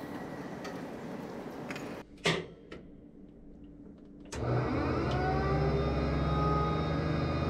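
Steady hangar noise with faint clanks, then after a cut two sharp clicks inside a Leopard 1 tank. Just past halfway the tank's machinery starts up with a loud low hum and a whine that rises in pitch, then levels off and runs steadily.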